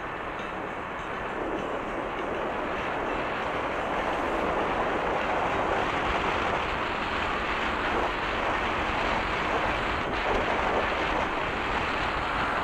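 Steady rush of wind over the microphone of a camera on a moving Honda PCX scooter, mixed with road noise, at about 60 km/h on a wet road. The rush grows a little louder over the first few seconds, then holds steady.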